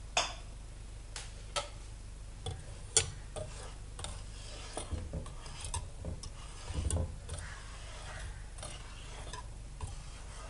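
Metal wire whisk stirring water in a pot to dissolve slabs of sugar, its wires knocking against the pot in irregular clicks and taps, with a cluster of duller knocks a little past the middle.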